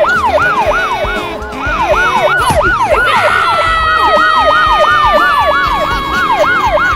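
A siren wailing, its pitch sweeping rapidly up and down about three times a second. About three seconds in, a long steady tone joins it and slowly falls in pitch.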